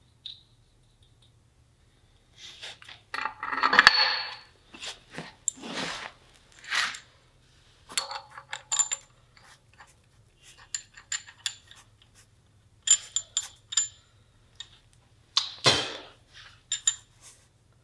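Steel bolts, nuts and washers clinking and rattling as they are handled and started by hand under an axle's spring insulator box. It is an irregular string of short metallic clinks with a few ringing pings, loudest about four seconds in.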